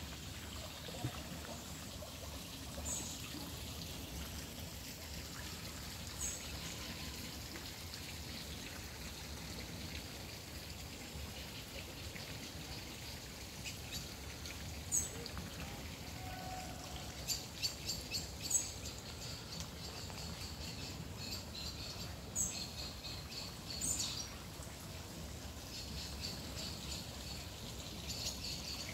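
Small birds chirping: short high calls every few seconds, busier twittering about halfway through. Underneath runs a steady sound of trickling water.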